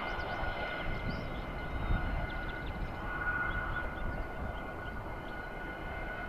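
Fighter jet engine running: a steady high whine over a low rumble, the whine swelling briefly about three seconds in.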